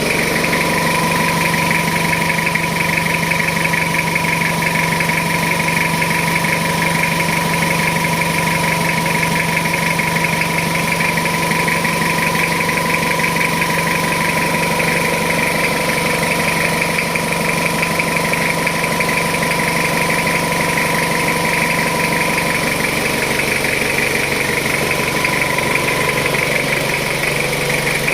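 Jeep Wrangler engine idling steadily, with a thin steady whine above the engine note that fades near the end.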